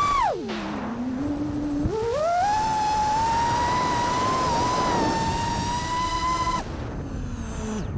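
FPV quadcopter's brushless motors whining. The pitch drops steeply as the throttle is cut just after the start, climbs back up about two seconds in and holds steady, then falls away near the end.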